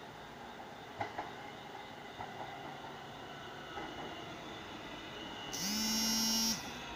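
New York City subway train approaching the station: a steady rumble with a few sharp clicks about a second in. About five and a half seconds in, the train's horn sounds one loud, steady tone for about a second.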